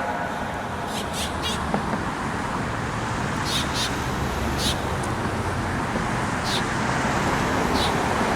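Outdoor background between siren sounds: a steady low traffic rumble with a few short, high chirps scattered through it.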